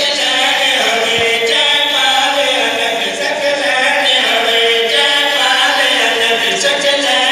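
Several men chanting an Urdu devotional qasida together, unaccompanied, in long held melodic lines.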